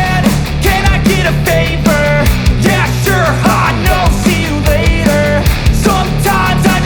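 Loud rock-style music with a steady beat and a pitched melody line over it.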